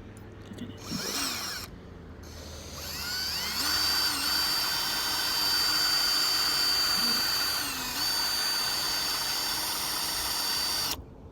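Small electric drill drilling out the rivets of a diecast model race car. It spins up briefly about a second in, then runs as a long, steady high whine from about three seconds. Its pitch dips briefly twice as the bit bites, and it cuts off sharply near the end.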